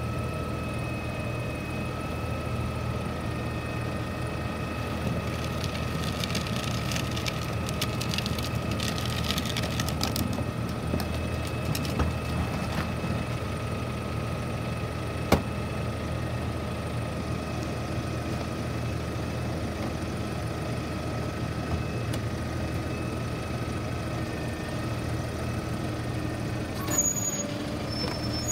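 Mack LR garbage truck idling at the curb: a steady low diesel hum with a thin steady whine above it. A few seconds in there is a stretch of rattling, and about halfway through a single sharp click.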